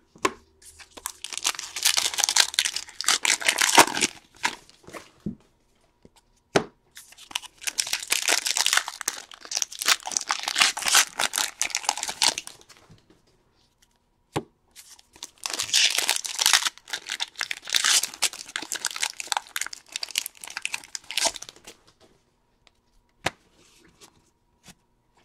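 Trading card pack wrappers being torn open and crinkled by hand, in three spells of tearing and crackling with a few sharp clicks between them.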